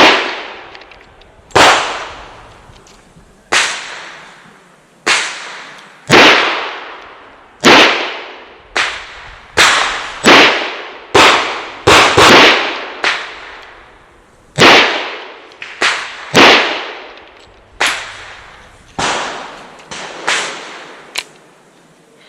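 Revolver shots from a Chiappa Rhino chambered in .40 S&W, fired through a stage of about twenty rounds. The shots are loud and come at uneven spacing, some in quick pairs less than a second apart and others with longer pauses between them. Each shot rings out with a long tail.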